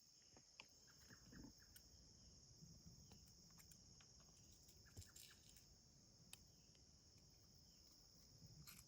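Near silence with a steady, high-pitched insect trill, typical of crickets, and a few faint clicks.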